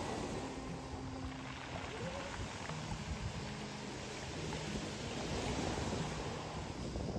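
Sea surf washing in on a shore of round stones, with wind, under faint soft background music.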